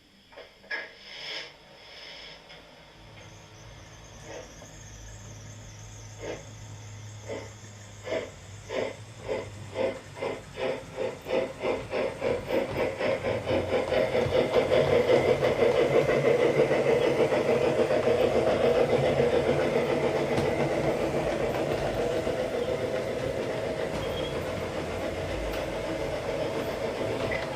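Steam locomotive driving sound from a ZIMO sound decoder in an LGB garden-railway model: after some hissing, the exhaust chuffs start slowly and quicken steadily as the locomotive gets under way, blending into a fast, even beat.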